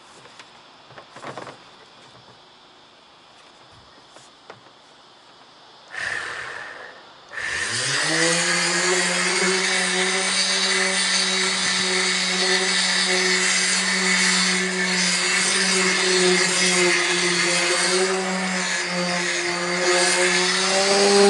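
An electric sander starts about seven seconds in, rising in pitch as it spins up, then runs steadily as it sands back the paint on a bus roof before repainting. Before it starts there are only a few light knocks and one short burst.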